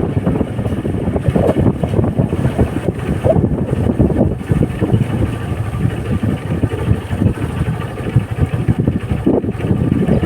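Honda motorcycle engine running while riding, mixed with loud, fluttering wind buffeting on the microphone.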